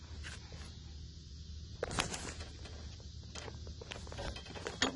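Faint handling noise: scattered light clicks and rustles over a low steady hum, the clearest click about two seconds in.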